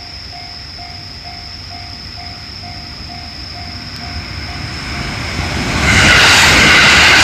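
Japanese level-crossing warning bell ringing at about two strikes a second with a steady high tone behind it. The loudness builds from about four seconds in, and about six seconds in a passing 221 series electric train rushes past loudly, covering the bell.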